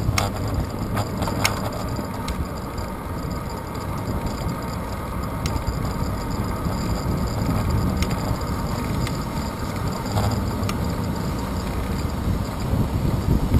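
Steady low rumble of wind and tyre-on-road noise from a moving bicycle, picked up by a camera on its handlebars, with a few faint ticks from bumps.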